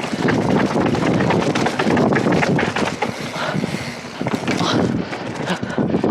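Wind rushing over an action camera's microphone as a cross-country mountain bike is ridden fast, with many quick clicks and rattles from the bike and its tyres on rough ground. The rushing is strongest for the first few seconds and eases off later.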